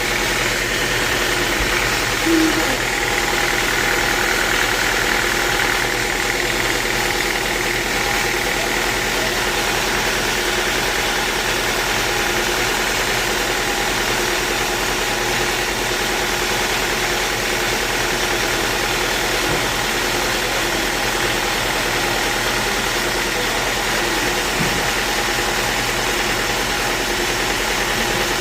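Sawmill machinery running steadily: a constant machine drone with a high whine over it, and a single short knock about two seconds in.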